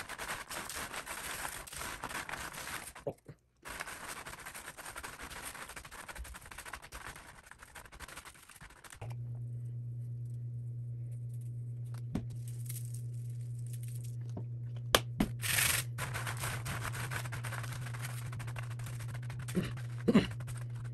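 Hands tossing sticky pecan halves on a foil-lined sheet pan: the nuts and the aluminium foil rustle, scrape and crinkle. About nine seconds in, a steady low hum starts under the rustling.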